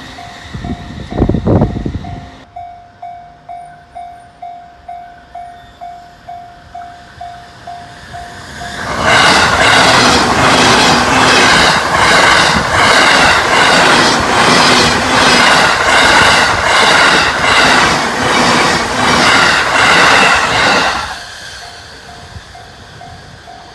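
Japanese level-crossing warning bell pulsing about twice a second. About nine seconds in, a train passes at high speed for some twelve seconds, a loud rush with a rhythmic clatter of wheels over the rail about twice a second that drowns out the bell. The bell is heard again once the train has gone.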